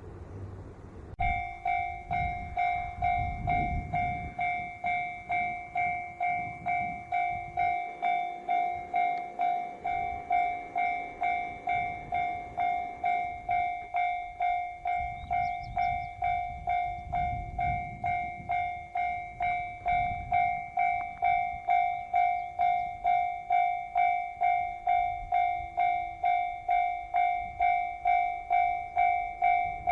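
Japanese railway level-crossing alarm starting about a second in and ringing in an even, repeating ding about twice a second: the warning that a train is approaching the crossing. A low rumble rises and falls a few times beneath it.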